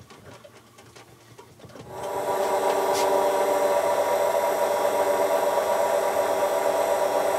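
Workshop machinery starts about two seconds in and then runs steadily with a constant whine, while a waxed pen blank spins on the wood lathe and is buffed with a cloth. There is a single click about a second after it starts.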